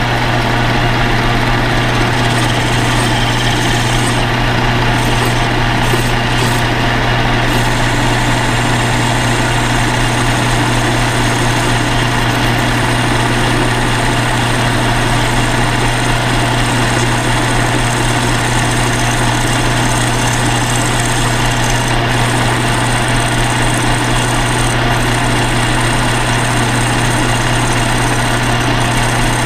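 Small belt-driven bench lathe running steadily with a constant low hum while it turns an aluminum spacer. The tool cuts as alcohol is brushed onto the work to keep the cut from chattering.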